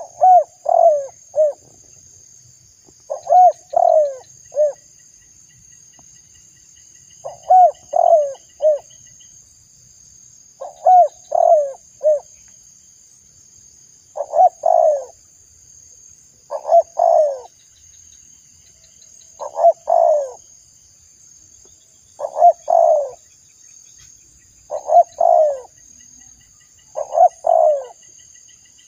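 Spotted dove (tekukur) cooing: a short phrase of three or four coos, repeated about every three seconds. Under it runs a faint, steady high-pitched hiss.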